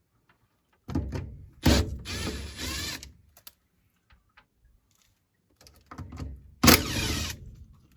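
Sheet-metal furnace access door being worked loose: clanks and knocks, a loud bang followed by about a second of scraping metal, and another loud rattling clatter near the end.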